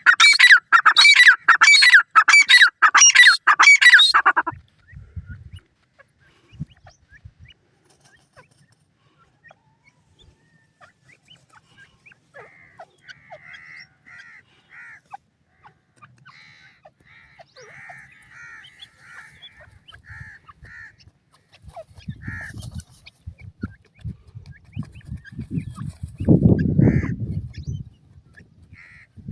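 Francolin hen (teetar) calling in a loud, rapid series of harsh, falling notes for about the first four seconds. Faint, short chick peeps repeat through the second half, with a low rumble near the end.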